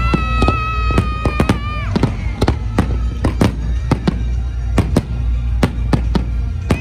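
Aerial firework shells bursting in quick, irregular succession: sharp bangs several times a second over a steady low rumble. A high held tone sounds for about the first two seconds, bending down as it ends.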